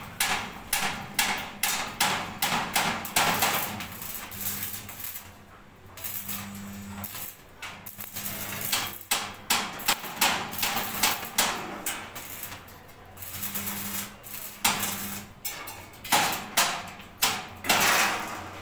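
Electric arc welding on a steel bar grill frame: the arc crackles in quick sharp bursts, several a second, over a low hum that comes and goes.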